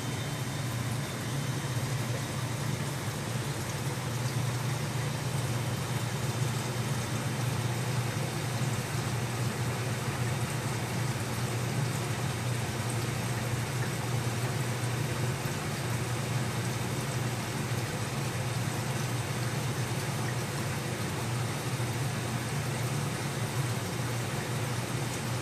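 Aquarium filter pump running steadily: a constant low hum under an even rush of moving water.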